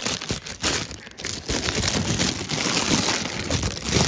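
White recycled-material packaging bag crinkling as it is handled and pulled open to take out an action figure, with a brief break about a second and a half in.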